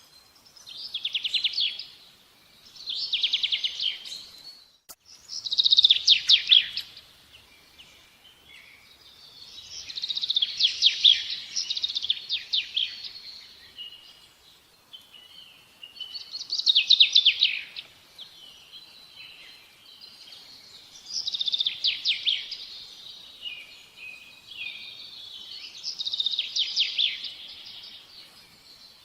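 A small songbird singing: bursts of rapid, high trilled notes, about seven phrases a few seconds apart, with a faint steady background noise between them.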